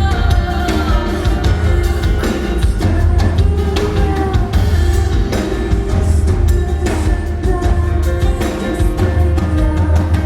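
Live rock band performing, with a drum kit beat, heavy bass and sustained pitched notes, and some singing.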